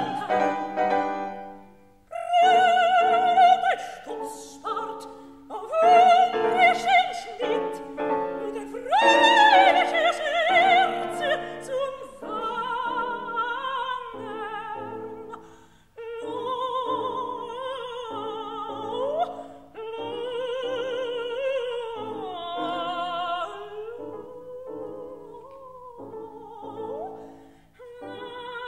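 Operatic soprano singing a German art song (Lied) with wide vibrato, accompanied by piano. The song moves in short phrases broken by brief pauses, the loudest and highest in the first ten seconds, then softer.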